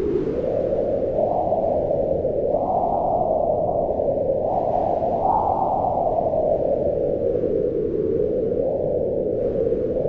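Howling storm wind: a steady low rush whose pitch swells up and down with the gusts, rising highest around the middle.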